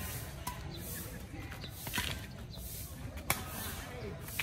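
Badminton rally: rackets striking a shuttlecock, three sharp hits roughly a second apart, the middle one the loudest.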